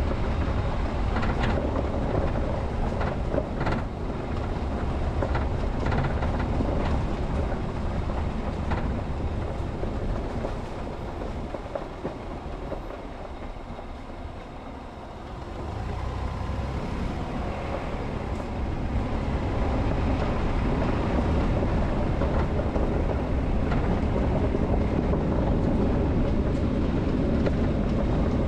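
Car driving: a steady low rumble of tyres and engine, with scattered sharp clicks. It quietens for a few seconds around the middle, then picks up again.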